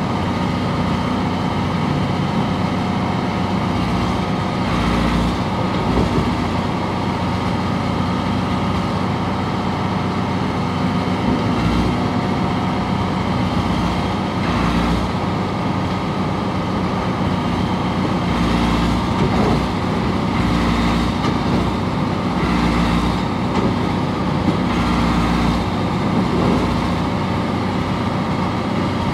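Caterpillar 955 track loader's diesel engine running steadily.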